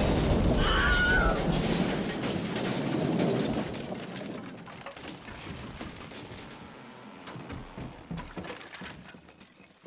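Aftermath of an explosion: the blast's noise dies away over several seconds, with scattered crackles and clatter of settling debris. A brief high wavering cry comes about a second in.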